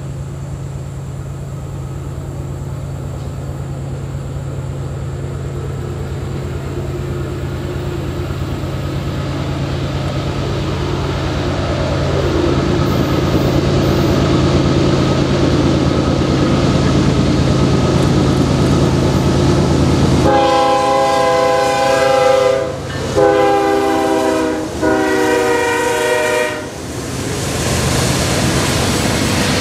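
Norfolk Southern freight train's diesel locomotives approaching, their engine drone growing steadily louder, then the locomotive air horn sounds three blasts of about two seconds each, starting about twenty seconds in. A broad rushing rumble of the train passing follows the horn.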